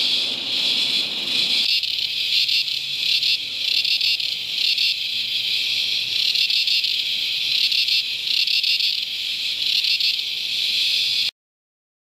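Cicadas screeching in a dense chorus, a high-pitched buzz that swells and fades in pulses about once a second. It cuts off suddenly near the end.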